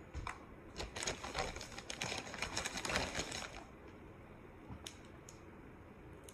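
Plastic snap-link fidget chain being bent and twisted, its links ratcheting in a rapid run of clicks for about three seconds, then a couple of single clicks.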